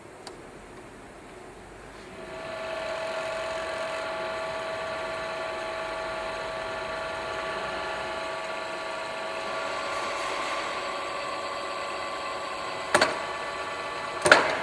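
Knuth SSB 35 Xn geared-head drill press: a click as its selector knob is turned, then, from about two seconds in, its electric motor and gear drive run with a steady whine while the spindle power-taps a thread in a bronze workpiece. Two sharp clacks come near the end.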